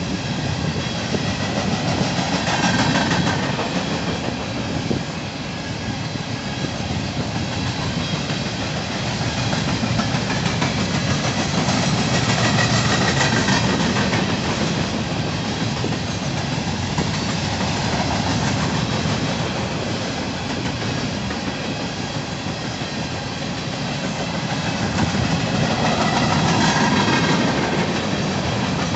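Empty open-top coal hopper cars of a freight train rolling past, a continuous noise of steel wheels on the rails that swells and eases in loudness every several seconds.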